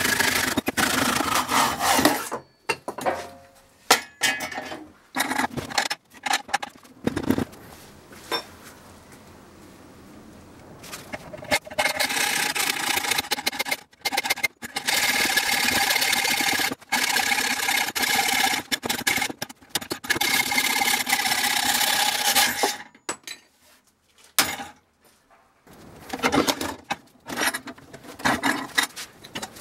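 A saw cuts through a wooden beam clamped in a welded steel bench vise and stops about two seconds in, followed by scattered knocks of handling. From about a third of the way in, a hacksaw cuts steadily through a metal bar held in the vise for about ten seconds, with a slight metallic ring. Near the end, metal clanks as the vise is worked by hand.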